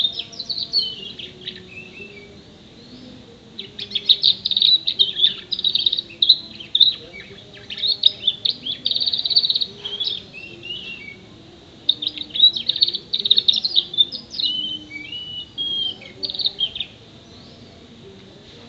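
A young domestic canary singing: high, rapid trills and chirps in several long bursts with short pauses between them. It is a song stocked with learned imitations of other birds' calls.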